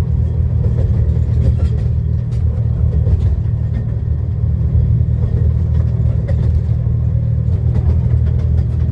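Miniature railway train running along at a slow trundle, heard from inside an enclosed carriage as a steady, loud low rumble with faint scattered clicks.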